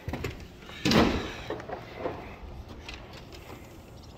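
An exterior door with a lever handle being opened onto a wooden deck. The loudest sound comes about a second in, followed by a few softer knocks.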